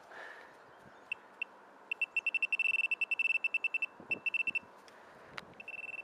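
Handheld metal-detecting pinpointer probe beeping at one high pitch as it is worked through loose soil: two single beeps, then a fast run of beeps, a shorter run and another near the end, signalling metal close to the probe tip. A single sharp click comes shortly before the last run.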